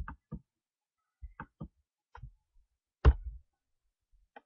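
Computer keyboard keystrokes: a handful of separate key clicks with uneven gaps, the loudest about three seconds in.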